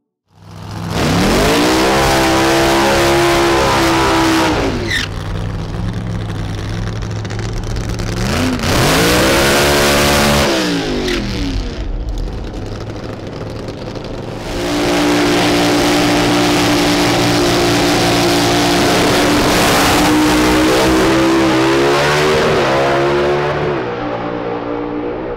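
Supercharged alcohol-burning V8s of Top Alcohol Funny Cars at full throttle during burnouts and runs: two loud revs that rise and fall in pitch, a quieter spell, then a long loud full-throttle pull at a near-steady pitch that wavers and drops off near the end.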